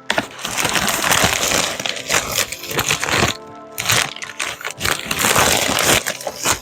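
Packaging of a box of disposable nitrile gloves being torn open and handled: loud crackling and crinkling in three long stretches, with brief breaks about halfway through.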